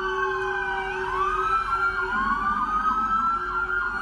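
Several police and emergency-vehicle sirens sounding at once, their wails rising and falling over each other. In the second half one switches to a fast yelp of short repeated sweeps.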